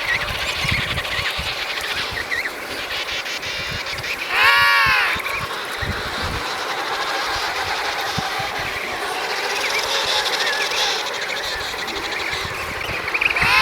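Emperor penguin colony: a steady din of wind and distant calls, broken about four seconds in by one loud call under a second long that rises and then falls in pitch. A second call like it starts at the very end.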